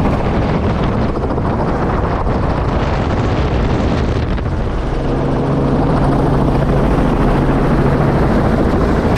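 Light helicopter in low flight heard from on board: steady rotor and engine noise with a low hum that grows stronger about five seconds in.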